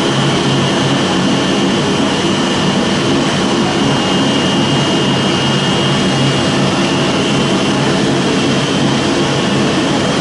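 Sawdust pellet production line running: the pellet mill and its feed and cyclone machinery make a loud, steady machine drone with a thin, constant high whine.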